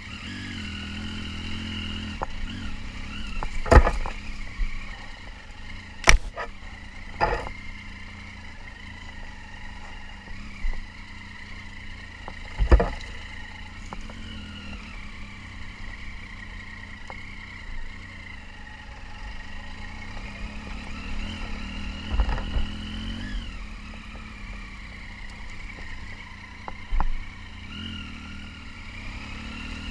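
Triumph Tiger 800 XC's three-cylinder engine running at low revs while the motorcycle picks its way along a rough sandy track, with occasional sharp knocks and clatters from the bike over the rough ground. The engine note climbs for a few seconds past the middle and drops back.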